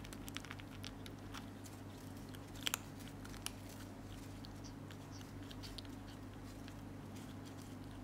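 A kitten crunching dry cat food: irregular small crunches over a steady low hum, with a few louder ones about three seconds in.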